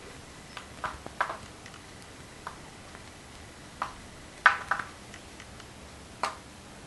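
Irregular small clicks and taps from hands handling things on a board, about seven in all, the loudest a quick double click about four and a half seconds in.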